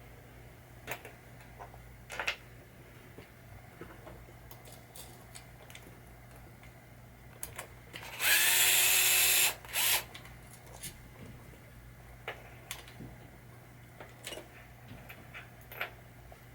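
Power drill/driver running a screw out for about a second, its motor pitch rising as it spins up, then a short second blip. Light clicks of small metal parts being handled.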